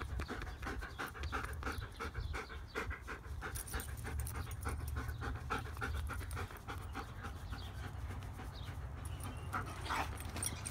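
German Shepherd panting rapidly and steadily with its mouth open, with a steady low rumble underneath.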